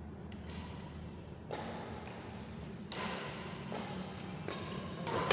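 Badminton rally: a shuttlecock struck by rackets, with dull thuds on the court and the loudest, sharp hit right at the end.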